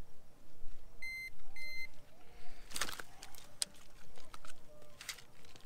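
A handheld digital fish scale beeps twice, two short high beeps about half a second apart, as it locks the weight of a bass hanging from it. Clicks and rattles follow as the scale and fish are handled.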